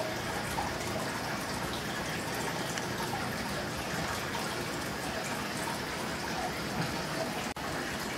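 Steady trickling and splashing of aquarium water, with a momentary break in the sound about seven and a half seconds in.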